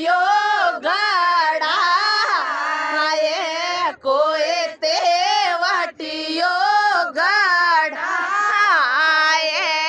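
Women's voices singing a Rajasthani wedding folk song (vivah geet) unaccompanied, a high, wavering, ornamented melody in long phrases with brief pauses for breath.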